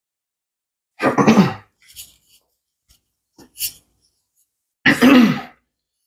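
A person coughing twice, about four seconds apart, with a few faint clicks in between.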